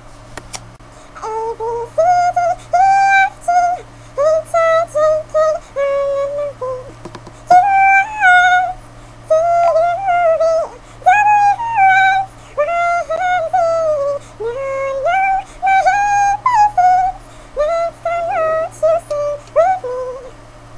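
A woman's voice, pitch-shifted into a squeaky, synthetic-sounding high register, chattering or sing-songing in quick short syllables that slide up and down in pitch. A faint steady hum runs underneath.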